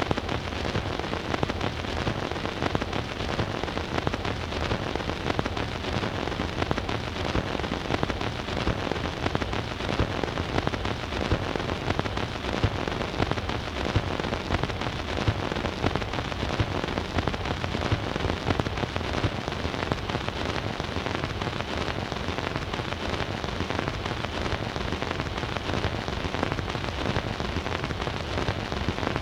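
Surface noise from a 78 rpm record's lead-in groove on a Bush record player: a steady hiss thick with crackle and small clicks, with no music.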